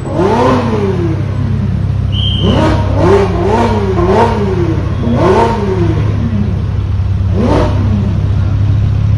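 A supercar engine revved repeatedly in short blips, each a quick rise and fall in pitch, over a steady low engine drone. A brief high chirp sounds about two seconds in.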